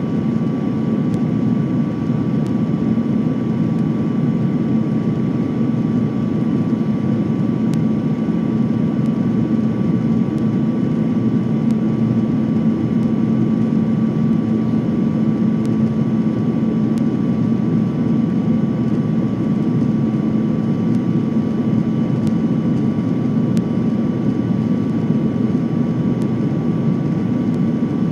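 Jet airliner cabin noise while descending to land: a steady roar of engines and rushing air heard from inside the cabin, with a low hum and a thin high whine running through it.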